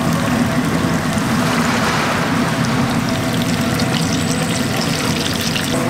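Breaded croquette toast squares deep-frying in a fryer of hot oil: a steady sizzling hiss with scattered crackles and pops, over a steady low hum.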